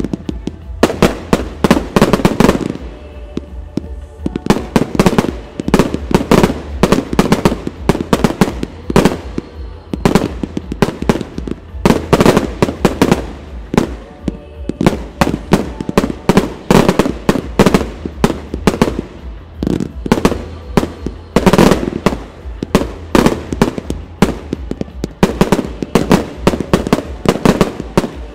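Firework display with aerial shells and comets fired in quick succession: a dense, unbroken run of launch thuds and bursting bangs, several a second, with a few louder bursts standing out, one near the middle and one about three quarters of the way in.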